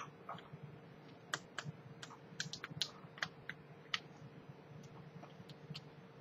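Light, irregular clicks and taps of a small screwdriver and fingers working the battery screws inside an open aluminium unibody MacBook Pro. The clicks come thickest in the first four seconds and thin out after.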